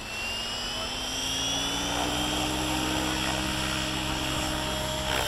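Gaui X7 RC helicopter's motor and rotor running up, a whine climbing slowly in pitch and getting louder as the head spools up.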